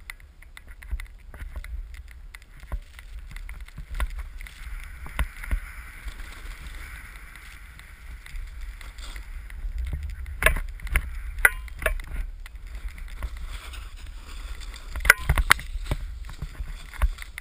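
Snowboard sliding and carving through powder, picked up by a camera on a hand-held pole: a steady low wind rumble with a hissing scrape of the board on the snow, and clusters of sharp knocks and clicks about ten seconds in and again near the end.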